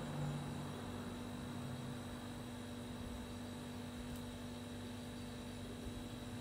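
Faint, steady electrical hum with a light hiss: the background tone of the recording setup.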